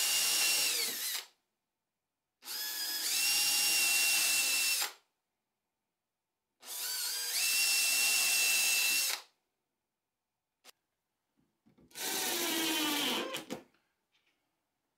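Makita cordless drill drilling pilot holes into a wooden door edge for a piano hinge, in three runs of two to three seconds, each spinning up to a steady whine with short silences between. Near the end a shorter run drives a screw into the hinge, its pitch dropping as the screw seats.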